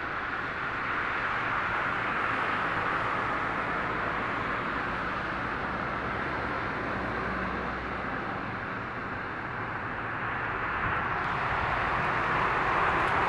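Boeing 787's General Electric GEnx jet engines at takeoff thrust during the takeoff roll: a steady rush with a low hum, growing louder near the end.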